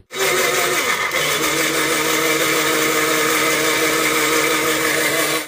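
Electric mixer grinder running at full speed, blending mint, coriander, ginger, garlic and green chillies with a little water into a wet paste. A steady motor whine that starts and stops abruptly.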